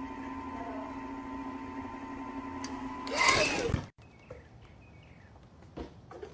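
Electric chocolate fountain running with a steady motor hum. A little after three seconds in comes a loud, noisy burst that cuts off abruptly. Then a faint background with a few soft knocks.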